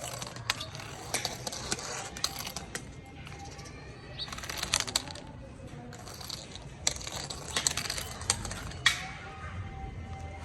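Interactive cat toy ball clicking and knocking irregularly on a hard floor as it rolls and gets batted about.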